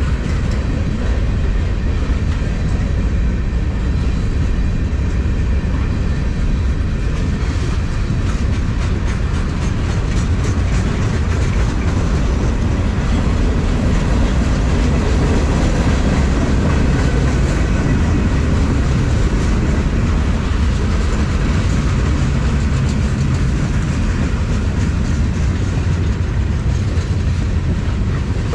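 Freight cars of a long freight train rolling past close by: a steady heavy rumble with clicks of the wheels over rail joints and a faint ringing squeal from the wheels.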